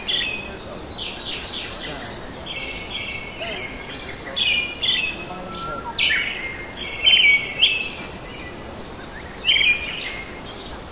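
Small birds chirping in quick repeated phrases, with several louder bursts about halfway through and near the end, over a steady background hiss.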